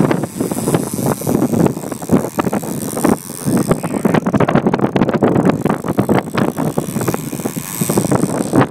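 Wind buffeting the microphone aboard a boat under way in rough water, a dense, irregular crackling rush over the running boat and the slap of the sea.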